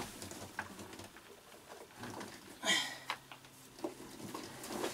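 Faint knocks and rustles of hands working a loop of rope through the handles of a heavy battery in a boat's battery compartment. There is a louder brushing rustle near three seconds in, followed by a low steady hum.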